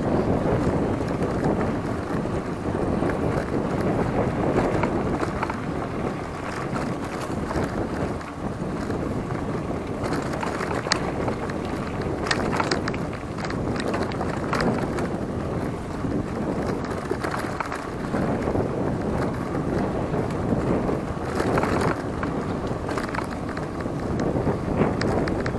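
Wind buffeting the microphone of a rider on a hardtail mountain bike on a trail ride, a steady rough rush. A few sharp clicks or rattles come through about halfway through and again near the end.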